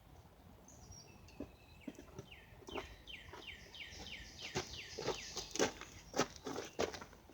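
A songbird singing a run of quick falling notes, about three a second, for a couple of seconds. Over it come irregular sharp clicks and knocks that grow louder toward the end.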